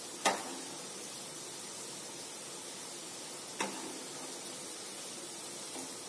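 Chakli deep-frying in hot oil, a steady sizzle, with two sharp clinks of a metal slotted skimmer against the frying pan, the first just after the start and the second about three and a half seconds in.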